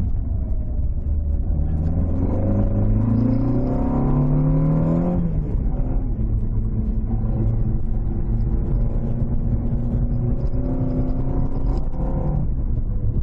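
Toyota AE86's 5-valve 4A-GE four-cylinder on 50 mm Weber carburettors, loud through its exhaust, pulling hard under acceleration. The revs climb for about three seconds, fall sharply about five seconds in, then pull again and fall once more near the end.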